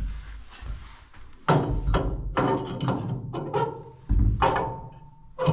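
Clunks and scrapes of a rewirable fuse carrier being worked into its holder in a metal fuse box: a string of sharp knocks with short metallic ringing, starting about a second and a half in.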